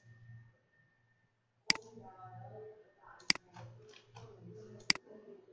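Computer mouse button clicking four times, about a second and a half apart, with faint low talk between the later clicks.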